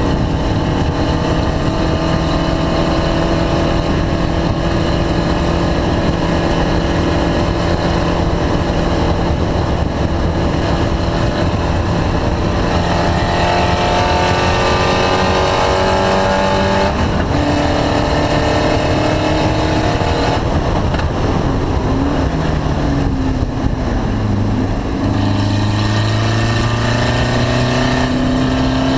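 Race car engine running continuously at speed, its note steady and slowly sagging at first, then changing pitch several times in the second half as the revs rise and fall. The engine is reported to be misfiring.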